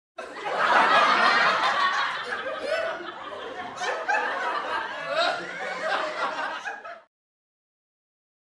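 Recorded laughter sound effect, people laughing for about seven seconds, then cutting off suddenly to silence.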